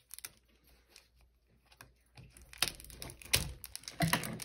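Clear plastic wrapping on a clear-pocket display book being pulled open by hand, crinkling and tearing. It starts with a few faint clicks, then turns to louder rustling with several sharp crackles from about halfway in.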